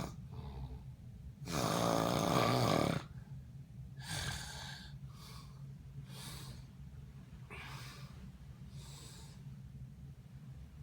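Snoring: one loud, rattling snore starting about one and a half seconds in and lasting over a second, followed by softer, hissing breaths about once a second. A steady low hum runs underneath.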